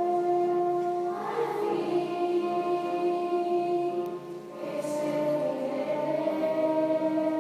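Children's choir singing in long held notes, changing pitch about a second in and again after a short dip in loudness around four seconds in.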